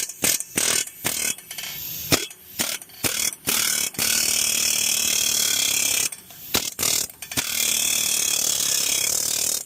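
Ratcheting clicks, then a powered tool running in two long steady stretches of about two seconds each, with a short run of clicks between, stopping abruptly. It is driving a hub separator to press the stuck front wheel hub loose a little at a time.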